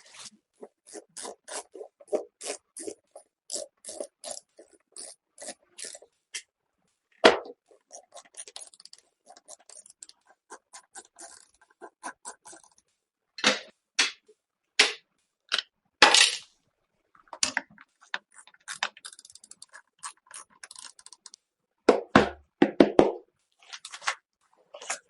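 PC parts handled during assembly: a run of small clicks and taps at about three a second, then scattered louder clacks and knocks, with a quick cluster of them near the end.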